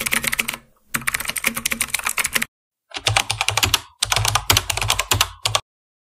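Computer keyboard typing sound effect: rapid key clicks in several bursts, broken by short dead-silent gaps, stopping a little over five seconds in.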